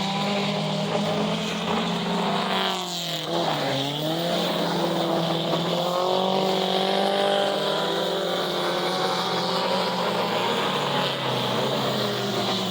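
Several race car engines running together around a track. Their pitch drops about three seconds in, as they come off the throttle, and climbs back as they accelerate again, then holds high and steady.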